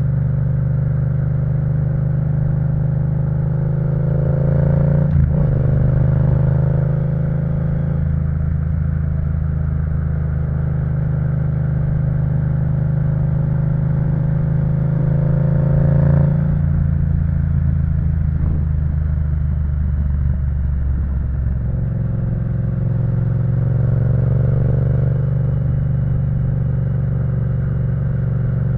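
Yamaha MT-07's parallel-twin engine through an Akrapovic full-system exhaust, riding under way: revs rise and break sharply at a gear change about five seconds in, climb again to a peak around sixteen seconds, drop off the throttle, then build once more near the end.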